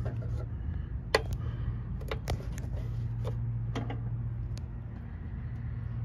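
Meter test-lead probes clicking and tapping against metal breaker terminals during a voltage check: a handful of sharp clicks, the loudest about a second in. A steady low hum runs underneath.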